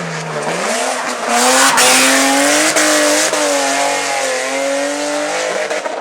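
Race car engine revving hard as it accelerates, its pitch climbing, with short cracks at the gear changes around the middle. About a second and a half in there is a loud rush of noise.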